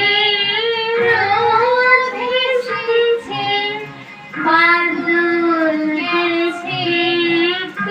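A song with a child's singing voice over backing music: held, sung notes, with a short pause about halfway through.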